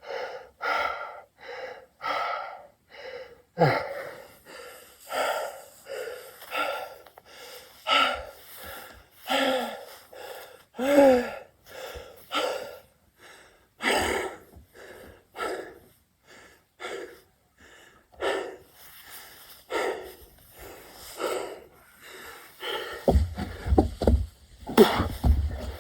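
A man breathing hard and fast mid-burpee set, a short gasping breath about every second, a few of them voiced with a sliding pitch. Low thuds or rumbling come in near the end.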